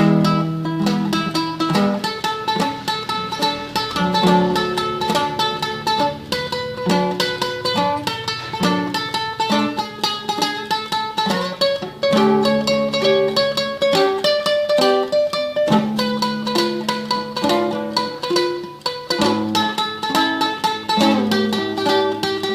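Solo classical guitar played in tremolo: fast, evenly repeated plucked treble notes over a slower-moving bass line.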